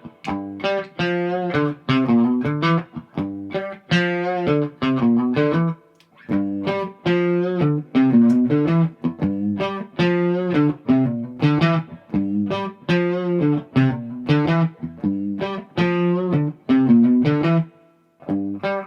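Gibson SG electric guitar played through an amp, not yet set up: picked chords and single-note riffs in short phrases, with brief pauses about six seconds in and near the end.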